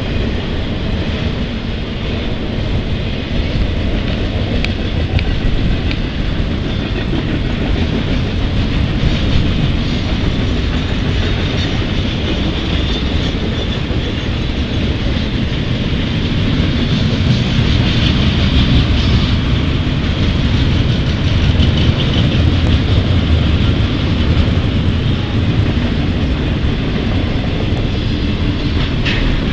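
Double-stack intermodal container train rolling steadily past: the continuous noise of its well cars' wheels running on the rails.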